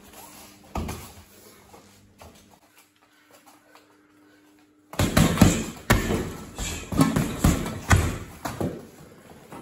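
A few boxing-glove strikes, then after a short lull a fast run of punches and kicks thudding into a heavy punching bag, about two hits a second.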